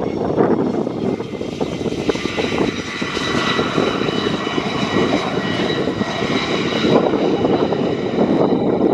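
Jet engine of the Thunderbird 8 F-16 running: a loud, steady rush with high whining tones that build from about a second and a half in and fade near seven seconds.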